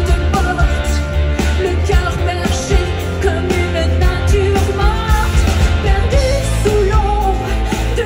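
Live pop-rock band playing loudly through a large festival PA, heard from the crowd: a woman singing over drums, bass guitar, electric guitar and keyboards.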